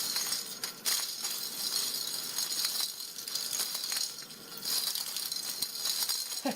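Small cat-toy balls rolling and rattling around inside a homemade ring track made of two frames, with a continuous clattering of many small clicks.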